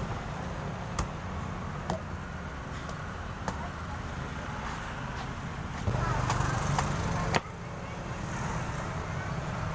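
A large knife chopping and shaving the husk of a young green coconut: a string of sharp chops, about one a second, with a louder stretch of cutting near the end. A steady low rumble of traffic runs underneath.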